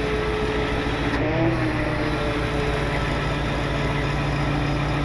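Wrecker's engine running with a steady hydraulic whine as the boom extension retracts under the operator's control; the pitch bends up briefly about a second in.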